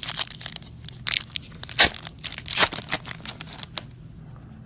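A football trading card pack's wrapper being torn open and crinkled: a run of sharp crackling rips over about four seconds, loudest a little under two seconds in and again just past two and a half seconds, then stopping.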